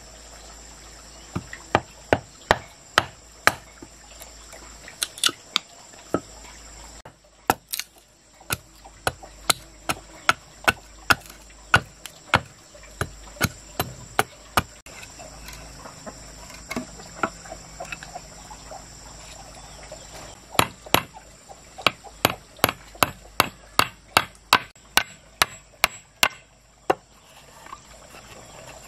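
Repeated chopping blows on wood, roughly two strikes a second, in runs with short pauses between them. A steady high-pitched insect buzz runs behind the blows and drops out for a while partway through.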